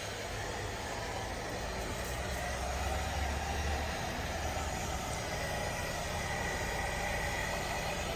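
Electric hair dryer running steadily, a constant rush of air with a thin motor whine, blowing onto barbecue charcoal to fan the coals.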